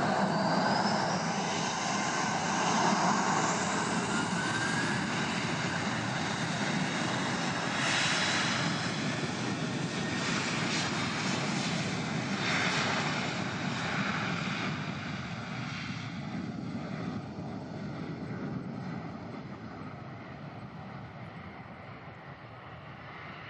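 Boeing 737-800 airliner's CFM56 jet engines spooling up, a rising whine over the first few seconds, then the steady noise of the takeoff roll. The sound fades as the plane accelerates away down the runway.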